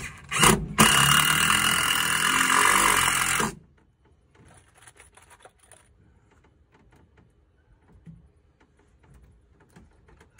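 Cordless drill running into a wooden 2x4 frame. It runs hard and steadily for about three and a half seconds, with a brief stutter near the start, then stops. A second, shorter and quieter run follows about a second later, then faint clicks of handling.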